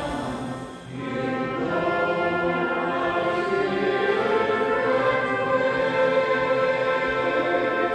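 Choir singing held chords with instrumental accompaniment, dipping briefly in level about a second in before swelling again.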